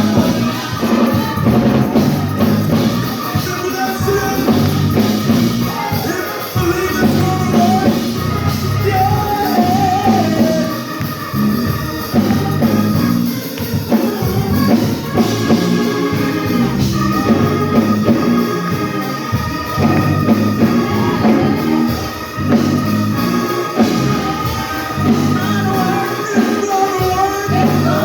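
Gospel music with singing over a band: a sung melody carried over drum kit and a stepping bass line, playing steadily throughout.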